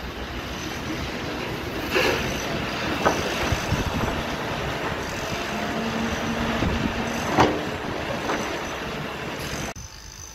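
Construction-site noise: a steady machinery din with a few sharp metallic clanks, one of them ringing briefly, and a sudden drop in level shortly before the end.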